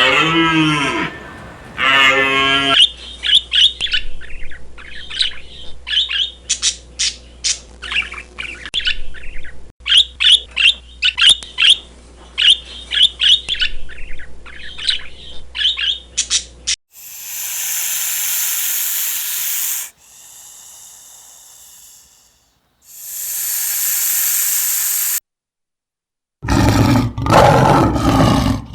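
A run of farm animal sounds: a short pitched call at the start, then a long stretch of rapid, high bird chirping, followed by bursts of hissing noise and a loud, pitched animal call near the end.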